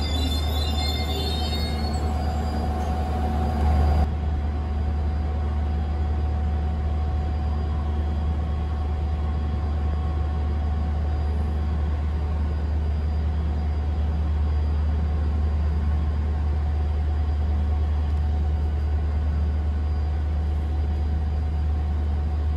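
Steady low rumble of a diesel-hauled Enterprise train standing at the platform, its Class 201 locomotive idling. Faint high squeals sound in the first couple of seconds.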